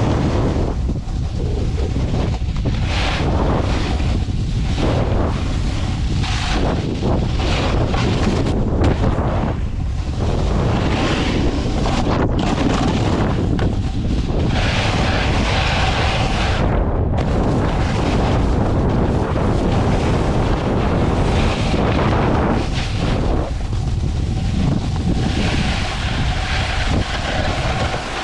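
Wind buffeting the microphone of a camera riding along with a snowboarder, over the scrape and hiss of the snowboard sliding on packed snow. The higher hiss swells and fades every second or two as the board turns.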